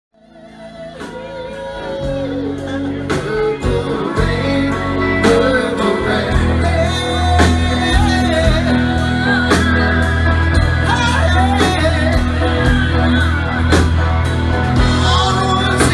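Live rock band playing in a bar: electric guitar, bass and drum kit, with a man singing lead. The sound climbs from quiet to full level over the first couple of seconds.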